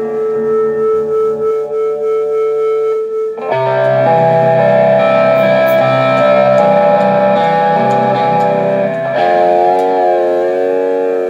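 Live rock band playing, led by electric guitar: a held note rings for the first few seconds, then the fuller band comes in with strong low notes about three and a half seconds in. Near the end a wavering, bending line takes over.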